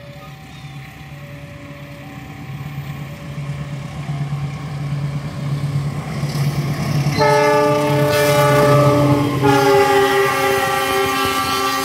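Diesel locomotive of a fuel tank train approaching, its engine rumble building, then sounding a long, loud multi-tone horn about seven seconds in. The horn's pitch drops slightly as the locomotive passes close by.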